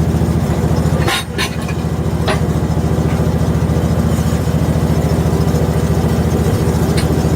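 Small engine running steadily at a constant speed, with a few sharp knocks or clacks about a second in and a couple more later.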